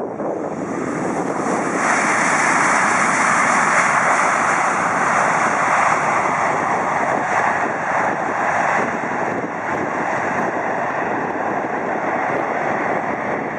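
Boeing 737-700's CFM56-7B jet engines in reverse thrust on the landing roll: a loud, broad rushing noise that swells about two seconds in and eases off after about nine seconds as the airliner slows.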